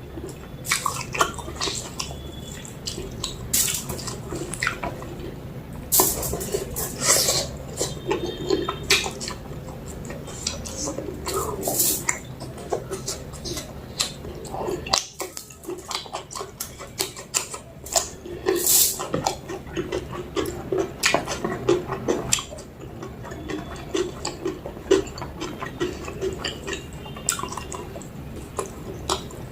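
Close-up eating sounds of mutton curry and rice: irregular wet smacks, squelches and chewing, with occasional light clinks against the dish.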